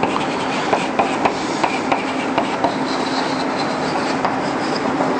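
Chalk writing on a blackboard: a string of short sharp clicks and scratches as the letters are made, over a steady hiss and a low hum.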